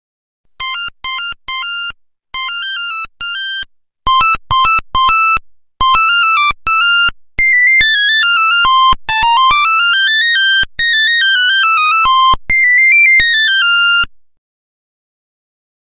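Nokia 1100 ringtone: a single-line melody of buzzy electronic beeps. It begins in short choppy phrases, then plays quick runs down and up in the middle, and stops near the end.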